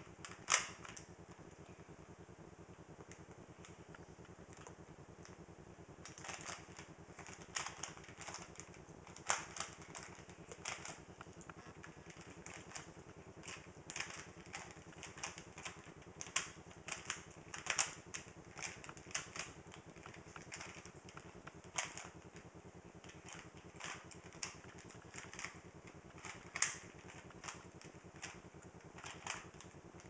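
Plastic Rubik's Cube layers clicking as they are twisted by hand during a solve. The clicks come in quick, irregular runs: sparse at first, then frequent from about six seconds in.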